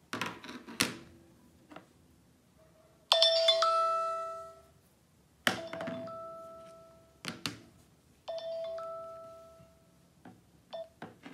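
iPhone incoming-call ringtone: a bell-like chime struck three times, each note ringing out and fading over a second or two. Sharp taps and clicks of the phones being handled on the table come near the start and between the chimes.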